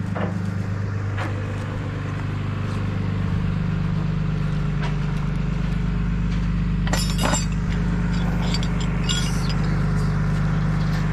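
Pickup truck engine idling steadily, with a few metallic clinks, the loudest about seven seconds in.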